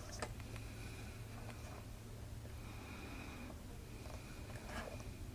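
Quiet room tone with a steady low hum, a faint high tone that comes and goes, and a few soft clicks.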